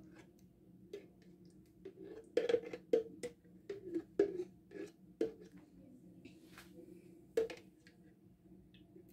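Utensil knocking and scraping inside a mayonnaise jar as mayonnaise is scooped out onto a tray of salad: a run of sharp taps from about two seconds in, then one more near the end.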